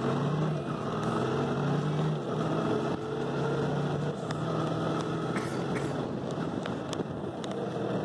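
Vehicle engine running steadily at low speed over road and wind noise, with a few faint ticks in the second half.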